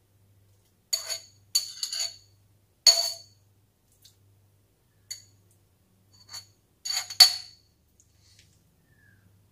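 Metal spoon clinking against a small glass jar and the wok as thick sambal is spooned into the jar. Short, sharp clinks with a brief ring come in small clusters, the loudest pair about seven seconds in.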